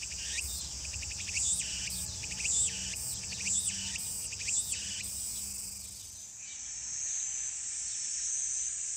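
Meimuna opalifera cicada singing, a rhythmic phrase repeated about twice a second over a steady high hiss. The song stops about five seconds in, leaving the hiss alone.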